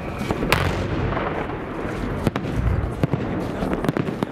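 Aerial fireworks shells bursting overhead: a run of sharp bangs, the loudest about half a second in and several in quick succession near the end, over a continuous low rumble of further bursts.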